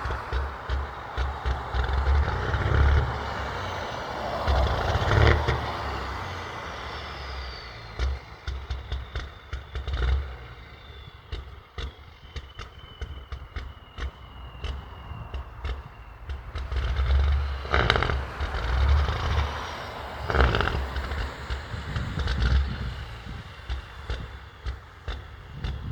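Big-rig diesel engine running at idle with a low rumble, swelling in level several times, most strongly about 17 to 21 seconds in. The engine sounds bad; the truck is smoking heavily and has lost power.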